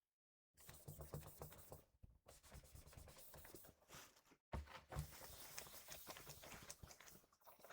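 Faint rubbing and scratching of a cloth being wiped over a laptop's casing, with small ticks and scrapes, stopping briefly a few times.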